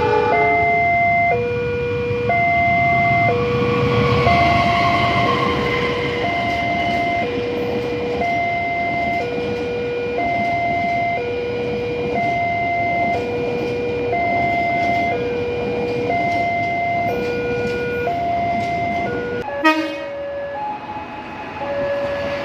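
Level-crossing warning signal sounding two alternating tones, each held about a second, while a diesel locomotive and its passenger carriages rumble past on the rails, loudest about four seconds in. Near the end a sharp click breaks in, and a different crossing signal follows at a higher pitch.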